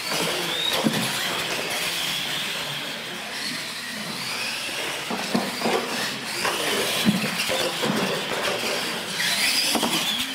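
Electric radio-controlled monster trucks racing: motors and gears whining, the pitch rising and falling with throttle. Scattered knocks as the trucks bounce over the ramps.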